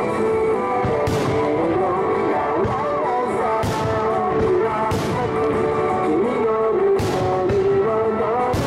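A rock-style song with a singer plays throughout. About five sharp bangs cut through it at irregular intervals, from firework shells bursting.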